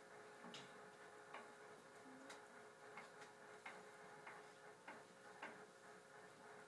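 Near silence: faint room tone with a steady low hum and soft clicks roughly every two-thirds of a second.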